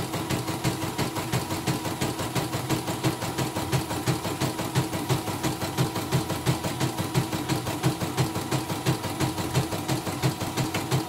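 CNY portable embroidery machine stitching a design, its needle and rotary hook running with a steady, even beat. The technician judges it stable after the rotary hook was sanded smooth and the bobbin case replaced.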